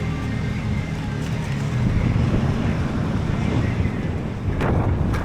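Motorcycle running with a steady low rumble, wind buffeting the microphone. There is a sharp knock near the end.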